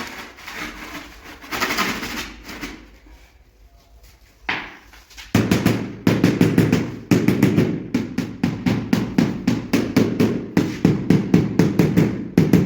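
Mallet tapping a tile to bed it into the mortar. About five seconds in, a fast, even run of knocks starts, about four to five a second.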